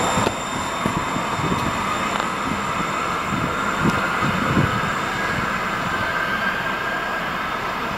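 TriMet MAX light-rail train, a Siemens SD660 car, pulling away from the platform: its electric traction motors whine with a slowly rising pitch as it accelerates, over the rumble of wheels on rail, with a couple of low thumps about four seconds in, fading gradually as it draws away.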